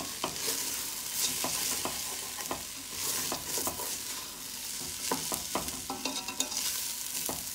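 Rice, onions and pigeon peas frying in oil in a stainless steel pot, sizzling steadily, while a wooden spoon stirs through them with irregular scrapes and clicks against the pot.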